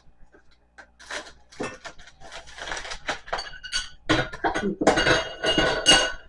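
Furniture parts and metal hardware being handled during flat-pack assembly: a run of knocks and clatter with metallic clinks and ringing, getting busier and louder over the last two seconds.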